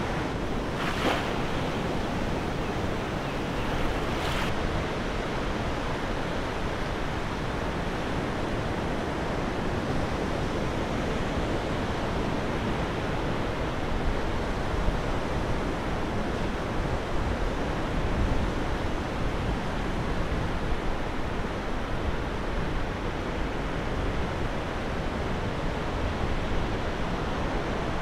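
Sea surf washing onto a flat sandy beach, a steady hiss of breaking waves with wind on the microphone. Two brief swishes come about one and four seconds in.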